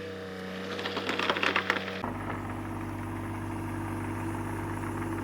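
A couple of seconds of clattering and rattling, then an abrupt change about two seconds in to an engine idling steadily.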